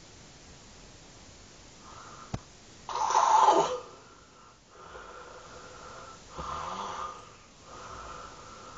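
A woman snoring: a short click, then a loud snore about three seconds in, quieter breaths after it, and another louder snore near seven seconds.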